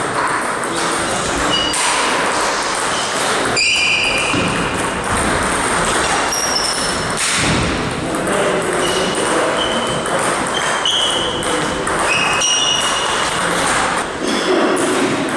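Celluloid table tennis balls bouncing on tables and bats, a scatter of short, sharp, ringing clicks at irregular intervals, heard in a large, echoing hall.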